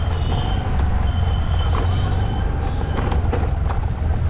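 Steady low rumble of motor traffic on a busy road, with a thin high whine that sounds twice, each time for a second or so.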